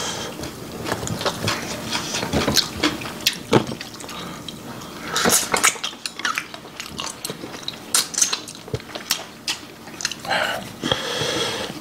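Chopsticks clicking against porcelain bowls and plates, mixed with wet eating sounds as spicy braised pork backbone is eaten by hand; the clicks come irregularly throughout.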